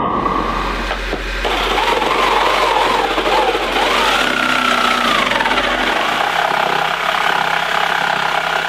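Makita jigsaw cutting through a wooden cabinet panel to make a vent opening. It starts in earnest about a second and a half in, and its motor pitch wavers up and down as the blade works.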